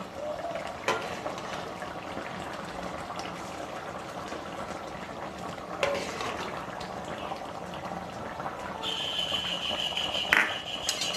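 Mutton curry boiling in a kadai just after hot water was added, a steady bubbling and sizzling with a few sharp knocks of a utensil against the pan. A steady high tone comes in near the end.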